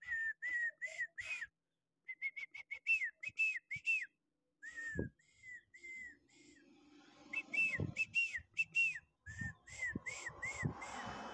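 Short, high whistled notes repeated in quick runs of four to eight, each note rising and falling, with brief pauses between the runs. A few low thumps come in the middle.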